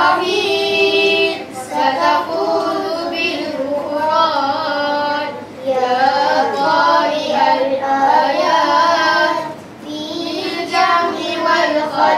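A group of children singing together, in long held phrases with short breaks between them.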